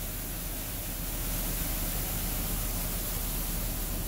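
Water jets of a touchless automatic car wash spraying the van, heard from inside the cargo van as a steady hiss of spray on the body and windows. It gets a little louder about a second in, with a steady low hum underneath.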